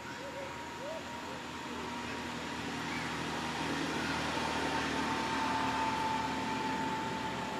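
A steady motor hum that grows louder over several seconds and eases slightly near the end.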